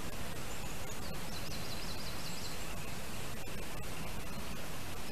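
Steady outdoor hiss from the nest camera's microphone. About a second in, a small bird's high trill lasts about a second and a half.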